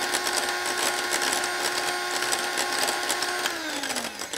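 Electric hand mixer running at steady speed, its twin beaters whisking mayonnaise in a glass bowl with a fine clatter. About three and a half seconds in it is switched off and the motor's pitch falls as it winds down, the mayonnaise finished.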